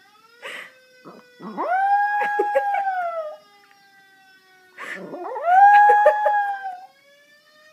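Yorkshire terrier howling twice, siren-like: each howl sweeps up quickly in pitch, holds for about two seconds and sags at the end.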